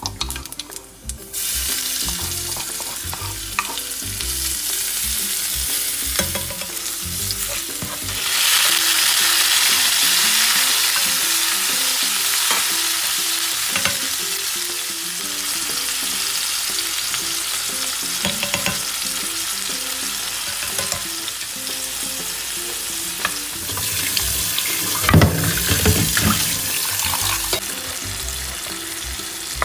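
Chopped tomatoes and spices frying in hot oil in a frying pan: a steady sizzle with stirring sounds that grows louder about eight seconds in, and louder stirring knocks near the end.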